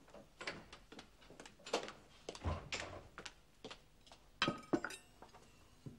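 Footsteps knocking on a hard floor as someone walks up carrying a plate, then china crockery clinking with a short ring about four and a half seconds in as the plate is brought to a table laid with cups and saucers.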